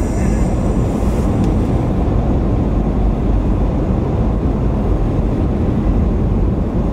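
Steady rumble of a car driving at road speed, tyre and engine noise heard from inside the cabin.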